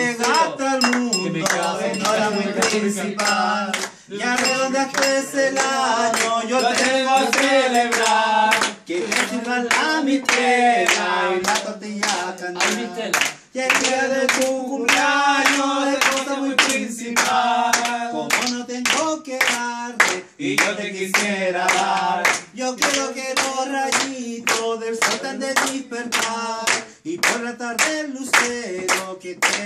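A small group singing a Chilean folk birthday song in unison, clapping along in a steady rhythmic beat.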